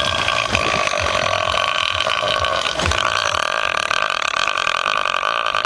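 A man burping one long, drawn-out belch lasting most of six seconds, its tone shifting about three seconds in.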